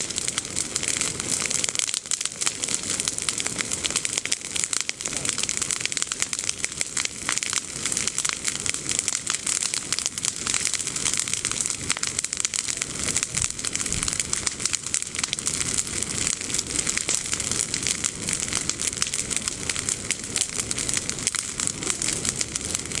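Bonfire of freshly cut green olive branches burning, the leaves crackling and popping densely and without pause.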